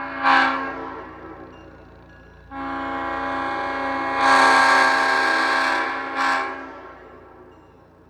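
Leslie Supertyphon S5T five-chime train horn with bronze bells sounding its chord: a short blast, then a long blast of about four seconds that swells louder partway through and ends with a brief extra toot, the sound trailing off in echo.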